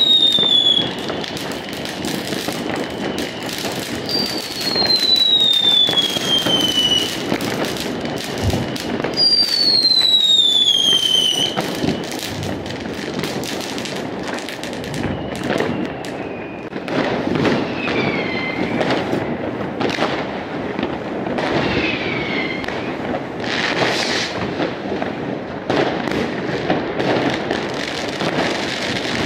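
New Year's Eve fireworks across a city: a continuous crackle of distant firecrackers and bangs, with whistling fireworks whose whistles fall in pitch. Three long whistles come in the first half, and several shorter ones follow later.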